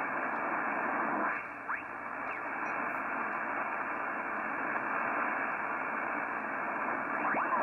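Static hiss from a Yaesu FTdx3000 HF transceiver's speaker as its VFO dial is tuned across the 40-metre band in lower sideband, with brief sliding whistles as it passes signals about two seconds in and again near the end. The band is nearly empty: little but noise, the dead conditions of a solar minimum.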